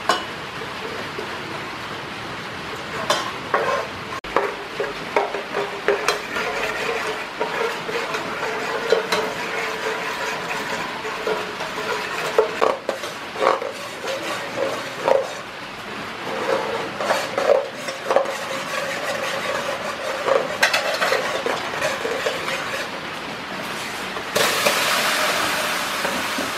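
A metal ladle stirring and scraping in an aluminium pot of hot, sizzling liquid on a portable gas stove, with irregular clinks against the pot. Near the end a louder steady sizzling hiss takes over.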